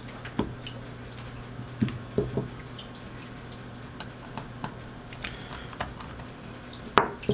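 An Anytone AT-3318UV handheld radio being picked up and handled during disassembly: scattered small clicks and taps of its case, with a sharper knock near the end.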